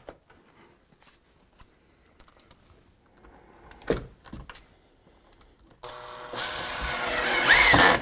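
Makita cordless drill-driver driving a screw into plywood: a few sharp clicks about four seconds in, then the drill runs for about two seconds near the end, getting louder as the screw goes in, and stops abruptly.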